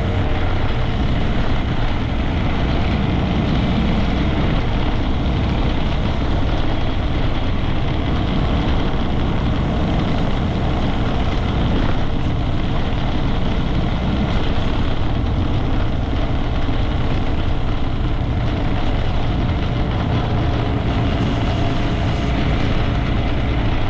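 Honda Grom 125's single-cylinder engine running steadily under way, with a constant hiss of wind and road noise.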